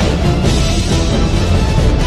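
Music: a full, steady piece with many held tones over a heavy low end.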